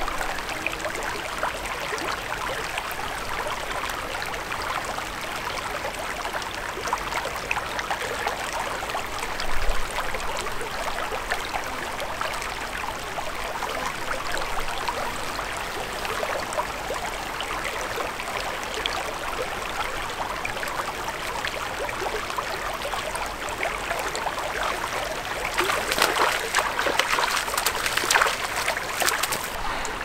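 Small, shallow mountain creek running and trickling over rocks, a steady rush of water. A brief low thump comes about a third of the way in, and the water grows louder and busier near the end.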